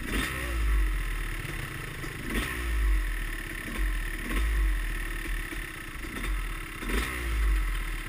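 Dirt bike engines revving in repeated bursts, about one every second or so, over a steady low engine rumble.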